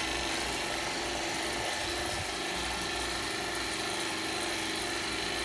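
Steady mechanical hum of running machinery, with a constant low tone and a faint high whine over a hiss.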